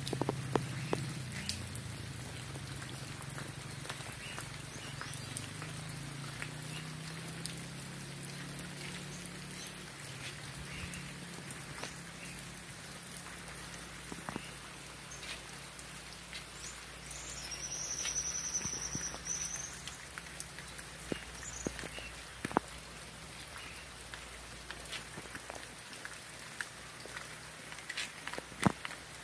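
Rain falling steadily, with many individual drops tapping sharply on nearby surfaces.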